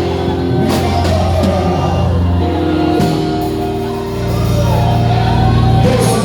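Live worship music with a band: held organ or keyboard chords, a bass line and drums with cymbal hits.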